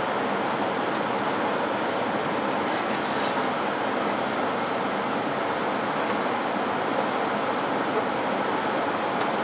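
Steady rushing airflow from a laboratory biosafety cabinet's blower fan. About three seconds in there is light clinking as a wire cage lid with food pellets is handled.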